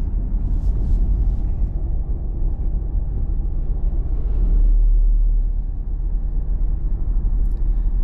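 Steady low road rumble inside a moving car's cabin, swelling briefly about halfway through.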